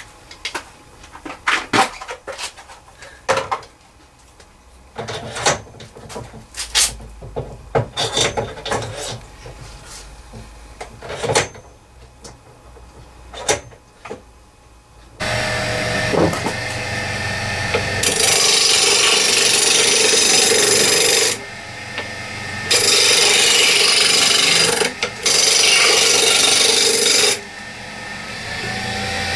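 Scattered clicks and knocks of metal lathe parts being handled and fitted. About halfway in, a loud rasping, rushing noise with a faint high whine cuts in, dips out briefly twice and comes back.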